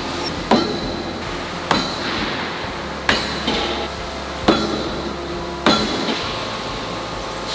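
Flat dies of an open-die forging machine striking a red-hot steel billet five times, about one blow every second and a quarter. Each blow is a sharp metallic bang with a brief ring, over a steady machine hum.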